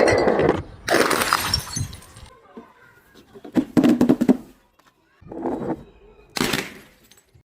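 A series of crushing and breaking sounds: about five separate bursts, the loudest in the first two seconds, with quieter gaps between them.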